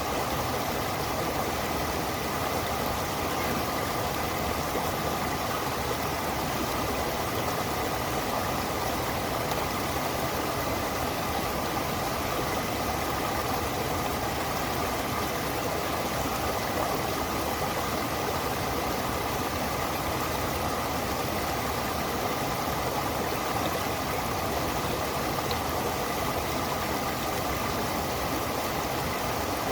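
Stream water rushing, a steady unbroken noise.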